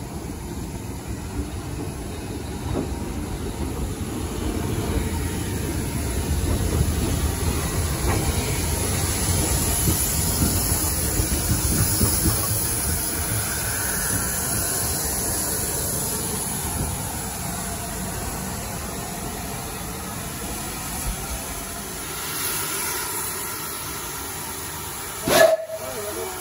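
Standing steam locomotive hissing steam steadily over a low rumble, the hiss strongest in the middle. A sharp, loud sound cuts in about a second before the end.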